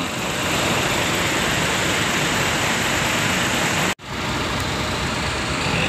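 Steady rushing drone of parked coaches idling, broken for an instant about four seconds in by an edit, then going on unchanged.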